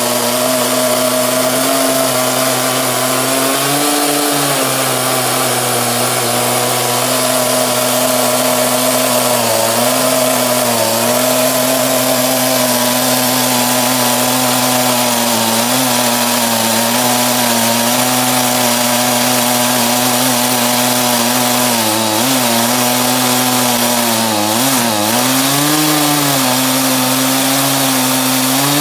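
Stihl MS 261 two-stroke chainsaw running steadily under load in a homemade chainsaw mill, ripping a log lengthwise. Its high engine note sags briefly a few times as it works through the cut, most noticeably twice near the end.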